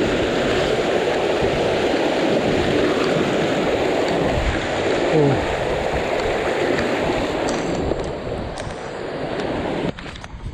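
Rushing water of a hill stream, a steady loud hiss that cuts off abruptly near the end.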